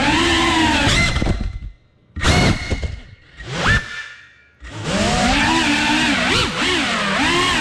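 FPV quadcopter's motors whining, their pitch wavering up and down with the throttle. About a second and a half in the throttle drops away almost to silence, broken by two short bursts of power, and the motors come back up near five seconds in.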